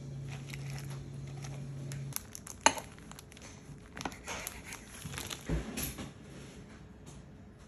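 Salad leaves and sliced vegetables rustling as hands pack them into glass food containers, with scattered light taps and one sharp click about two and a half seconds in. A low steady hum stops about two seconds in.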